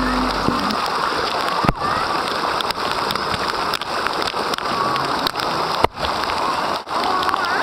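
Water from splash-pad sprays and fountains pattering down steadily like rain, with a few sharp clicks and brief dropouts where drops hit the camera.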